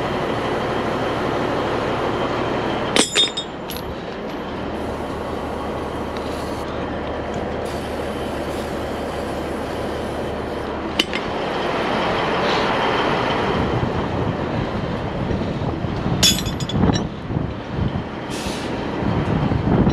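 Steady wind noise on the microphone over a low engine hum, broken a few times by sharp metallic clanks of load chains and a lever binder being handled.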